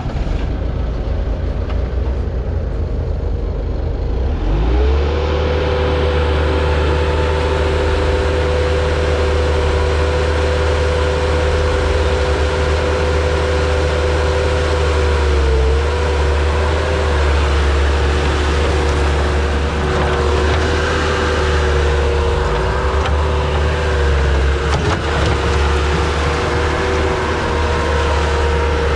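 Bobcat skid steer's diesel engine running steadily. About four seconds in it is throttled up and a steady whine joins the rumble, dipping briefly twice.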